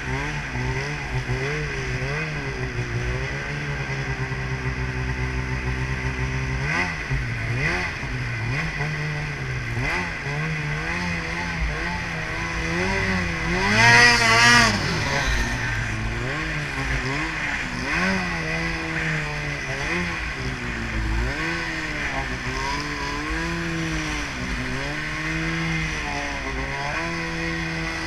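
Snowmobile engine running under load, its pitch rising and falling again and again as the throttle is worked. The loudest and highest rev comes about fourteen seconds in.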